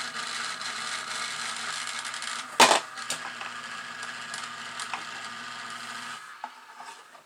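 A No. 751 log loader toy train accessory running, a steady electric hum and mechanical whir, with one sharp clack about two and a half seconds in, stopping about six seconds in. It runs quietly now that electrical tape on its solenoid plunger keeps the plunger from going too far into the solenoid.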